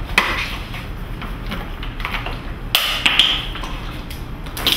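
Handling noise from a plastic bottle of canola oil being opened and tipped up to drink from: a few short scrapes and clicks, the loudest about three seconds in.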